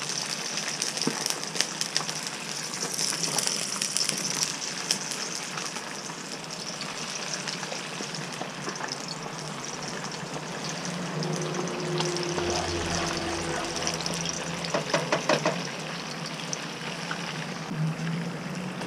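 Hot oil sizzling and crackling steadily in a skillet as a whole fish fries, with a spatula scraping and stirring in the pan. The sizzle is brightest in the first few seconds, and a short patter of clicks comes about fifteen seconds in.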